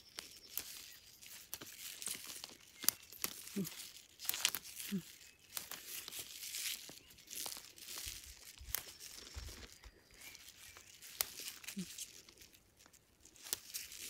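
Plant stems snapping and leaves tearing and rustling as tender shoots of wild greens are picked off by hand: a run of many short, crisp snaps and crackles.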